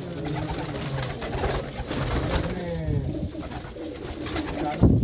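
Domestic racing pigeons cooing in a loft, with scattered sharp clicks and one loud thump near the end.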